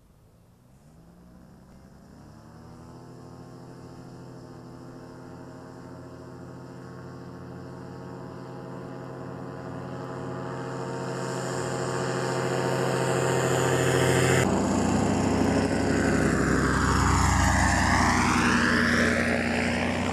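Paramotor engine and propeller throttling up for takeoff, the pitch climbing over the first couple of seconds and then holding steady as it grows steadily louder. About fourteen seconds in, an abrupt cut to the paramotor running at power as it flies low past, its sound sweeping down and back up in pitch as it goes by.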